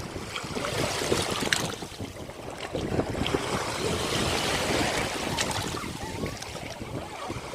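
Ocean waves washing in on a shore, the surge swelling about a second in and again through the middle, with a few sharp splashes or clicks.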